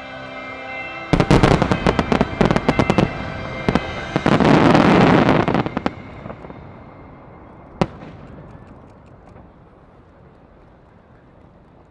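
A barrage of fireworks: a rapid string of sharp bangs, then a dense crackling roar. It fades away, with one last sharp bang and a few faint pops near the end.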